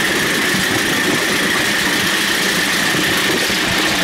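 Miniature steam train running along the track: the steady running and rolling noise of the 7¼-inch-gauge-style ride cars and locomotive, heard from a car behind the engine.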